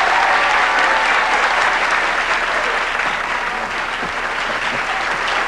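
Audience applauding a performer's introduction: loud, dense clapping that eases slightly in the second half.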